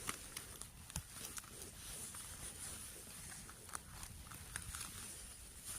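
Light crackles and clicks from footsteps and handling in forest leaf litter, scattered irregularly, over a steady high-pitched drone of insects.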